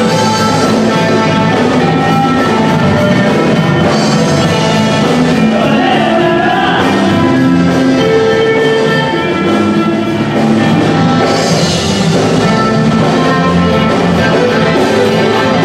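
Loud live band music playing for dancing, continuous, with a steady beat.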